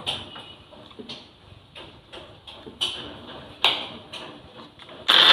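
Scattered plastic clicks and knocks as a black lid is pressed and twisted onto a steel mixer-grinder jar and the jar is set on its motor base. Right at the end the mixer grinder switches on loudly, grinding dry-roasted whole spices and dried red chillies.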